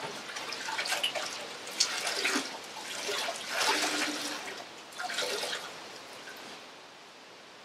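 Water sloshing and dripping as a soaked hank of merino wool is handled, in irregular bursts over the first five seconds or so, then quieter.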